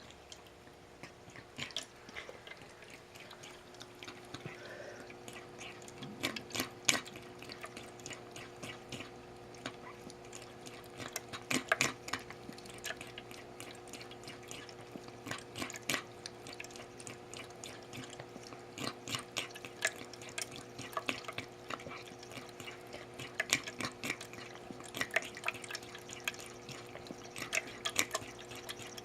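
A pet drinking water, wet lapping clicks coming at an irregular pace with short flurries, over a steady low hum.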